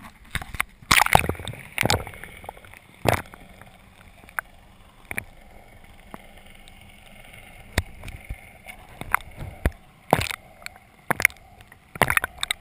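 Water sloshing and gurgling around a camera held just under the surface, muffled, broken by irregular sharp splashes and knocks; the loudest come about a second in and again around ten seconds.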